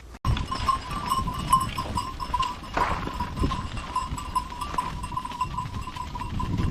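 Sheep moving about in a pen, hooves knocking and shuffling irregularly. A steady, slightly wavering high tone sounds throughout.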